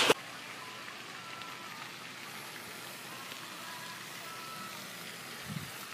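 A sharp click at the very start, then a steady, even hiss of background noise, with a faint low thump near the end.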